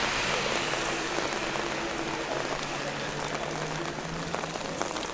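Heavy rain falling steadily, a dense hiss with many sharp ticks of individual drops striking close by.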